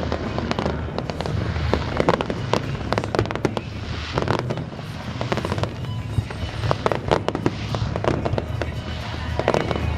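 Fireworks display: repeated bangs of aerial shells bursting, with crackling, over a steady low rumble, and music playing faintly underneath.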